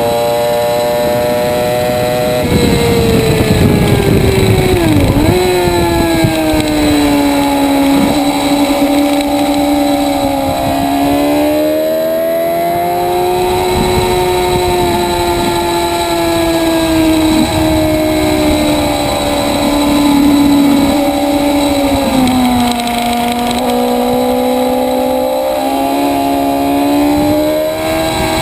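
Motorcycle engine at high revs heard onboard during a track-day lap. The engine note drops after a couple of seconds, with a quick dip and recovery around five seconds in, then rises and falls with the corners. Wind rushes on the microphone.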